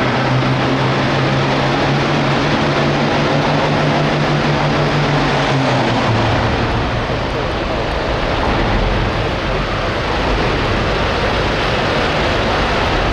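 Hot farm pulling tractor's diesel engine running hard and loud, its pitch dropping about six seconds in.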